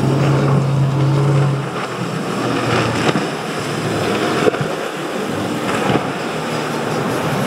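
Motorboat engine running with a steady drone for the first couple of seconds, then rushing water and wind noise with a couple of sharp knocks.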